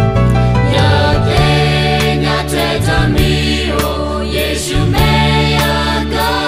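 Choir singing a Karen song over an instrumental accompaniment with sustained bass notes and a steady beat about twice a second.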